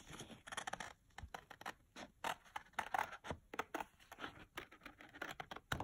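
Scissors cutting through cardstock: a run of short, irregular snips with the paper rustling between them.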